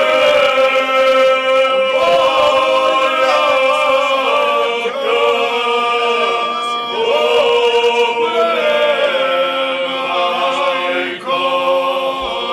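Unaccompanied male group singing in the traditional Krajina style: several men's voices holding long, wavering notes together.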